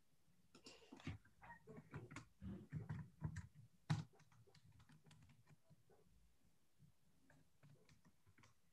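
Faint typing on a computer keyboard: a quick run of keystrokes over the first four seconds or so, then a few scattered, fainter taps.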